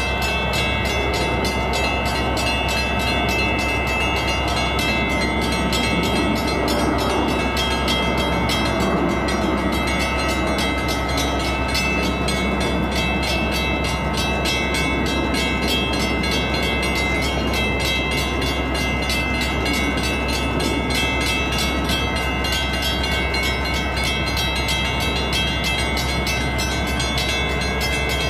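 Diesel engine of a Metra SD70MACH locomotive running steadily at low throttle, a constant rumble with a few held whining tones over it.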